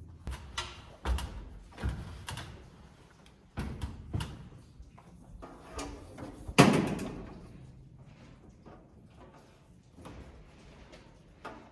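Irregular knocks and thumps of hands-on building work in a wood-framed house, about half a dozen in all. The loudest comes about six and a half seconds in and rings out briefly.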